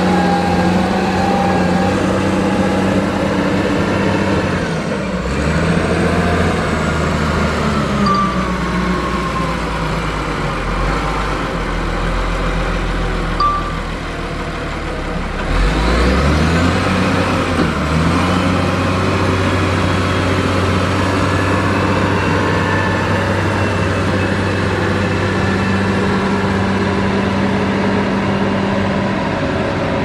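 Dresser motor grader's diesel engine running steadily under load while the blade grades dirt. The engine note dips and then picks up about halfway through.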